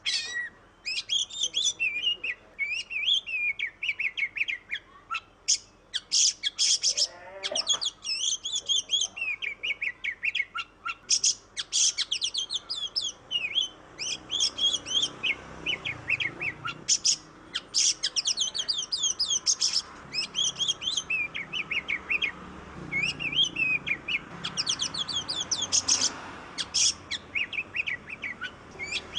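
Oriental magpie-robin (kacer) singing continuously: a fast, unbroken run of varied whistled and chattering phrases with only brief pauses.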